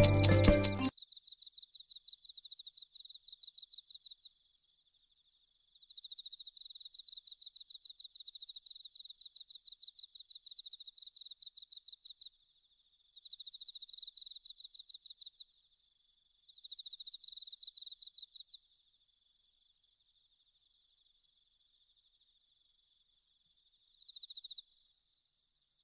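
Cricket trilling: rapid, evenly pulsed high chirps in bouts of a few seconds, broken by short pauses and a longer gap near the end.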